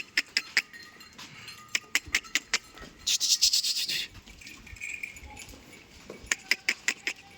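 Goats' hooves clicking on a hard floor in quick runs of sharp clicks, with a short hissing burst about three seconds in.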